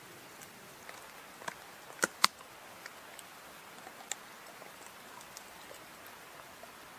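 Sharp cracks and crunches of a wooden stick being chewed by a chocolate Labrador: two loud snaps close together about two seconds in, and scattered lighter clicks around them.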